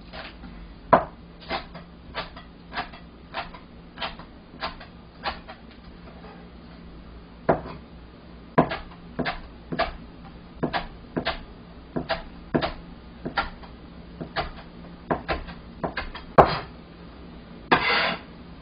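Chinese cleaver chopping Korean green onion on a cutting board: a regular series of sharp knife strikes about every 0.6 s, with a pause of about two seconds in the middle. A longer, rougher sound comes near the end.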